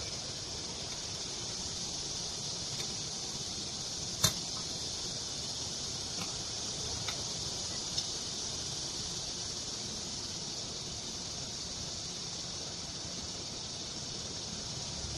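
Small metal engine parts of a Honda GX35 four-stroke trimmer engine being handled during assembly: one sharp click about four seconds in and a few fainter ticks, over a steady background hiss.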